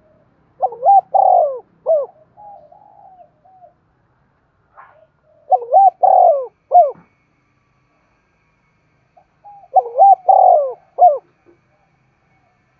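Spotted dove cooing: three loud phrases about four seconds apart, each a few quick coos ending in a short note, with fainter soft coos after the first phrase.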